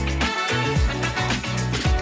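Background music with a steady drum beat over a bass line.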